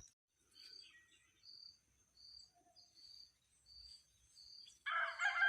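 A cricket chirps faintly and evenly, one short high note repeating more than once a second. Near the end a rooster starts to crow, much louder than the chirping.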